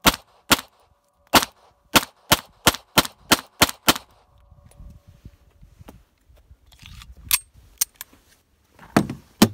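A rapid string of about eleven shots from a Beretta 92FS 9mm pistol over the first four seconds, unevenly spaced and coming faster toward the end. Then quieter shuffling and rustling, with a few sharp knocks near the end.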